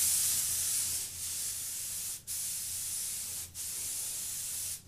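Compressed-air spray gun spraying two-part automotive gloss: a steady hiss of air and atomised coating, broken by two short pauses, about two seconds in and again about three and a half seconds in.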